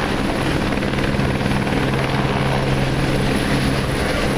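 Helicopter turbine engines and rotors running, loud and steady, with a continuous low hum under the rotor noise.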